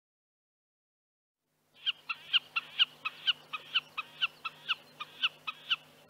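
Common snipe calling: a rapid, even run of short, sharp notes, about four a second, starting about two seconds in.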